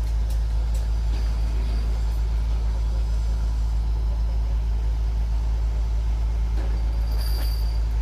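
Heavy mobile crane diesel engines running steadily during a lift, a constant deep drone.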